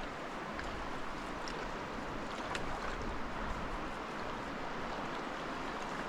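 Steady rush of a fast-flowing river, an even noise without pauses, with a few faint ticks over it.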